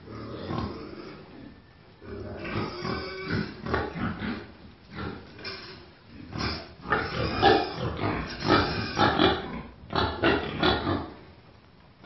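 Domestic pigs grunting in short, irregular bursts, busiest and loudest in the second half, dying away shortly before the end.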